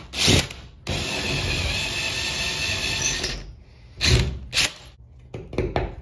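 Power drill boring an anchor hole into the ceiling, running steadily for about two and a half seconds. A few short knocks come before and after it.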